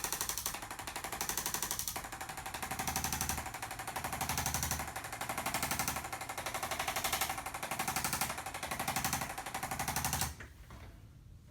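A rapid, even mechanical pulsing like a motorised percussive device, swelling and easing every second or so, stops suddenly about ten seconds in.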